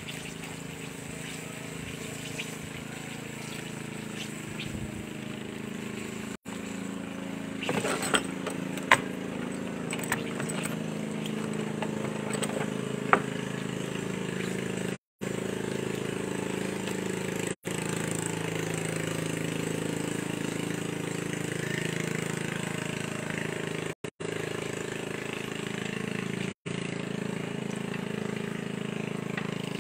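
Banana fritters deep-frying in a large pot of oil, a steady sizzle under a low steady hum like a motor running. A few sharp clicks come about eight to thirteen seconds in, and the sound cuts out for an instant several times.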